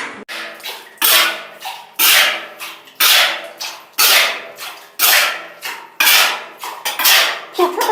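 A series of sharp hits, about one a second with a few coming in quick pairs, each fading out with a brief ringing tail.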